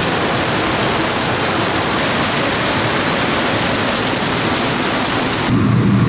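Heavy rain pouring down in a dense, steady hiss. About five and a half seconds in it cuts off suddenly to a low steady hum.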